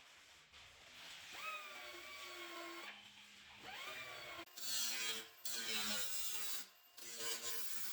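A small electric motor, like a hand power tool's, spinning up twice and then running in several short, louder bursts from about halfway through.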